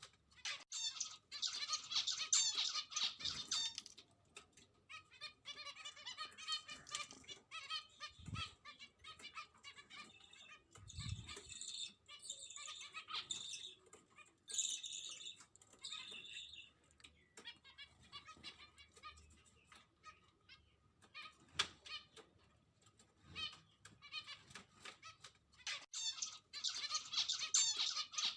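Small pet birds chirping and chattering faintly in bursts of quick, warbling high notes, with short quiet spells between, and a few soft low thumps.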